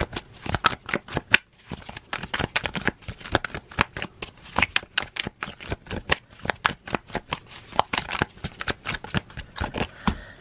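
A deck of oracle cards being shuffled by hand, overhand: a fast, uneven run of short card-on-card slaps and clicks.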